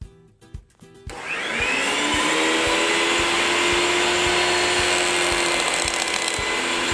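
Table saw with a dado blade starting up about a second in, its motor whine rising in pitch as it comes up to speed, then running steadily. A stack of plywood discs is fed over the spinning blade to cut grooves.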